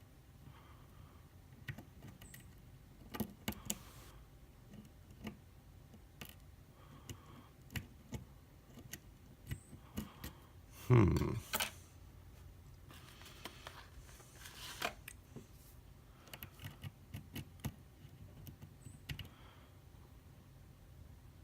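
Lock pick and tension wrench working the pins of a Wilka euro cylinder: scattered small clicks and scrapes, with one louder knock and rub about eleven seconds in.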